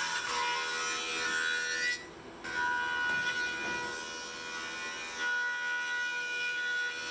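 Thickness planer running with a steady whine as a board feeds through it. The sound drops out briefly about two seconds in.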